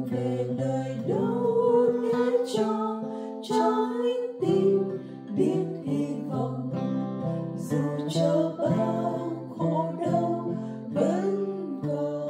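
Acoustic guitar accompanying voices singing a Vietnamese hymn.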